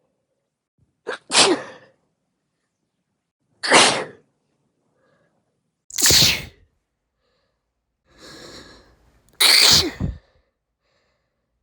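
Woman sneezing four times, a couple of seconds apart. Each sneeze is loud and sudden, and a quieter drawn-out breath comes in just before the last one.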